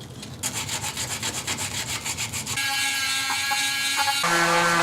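Wood being rubbed by hand in quick, regular strokes, about six a second, like sanding or sawing. A steady hum comes in about two and a half seconds in, then drops in pitch and gets louder near the end.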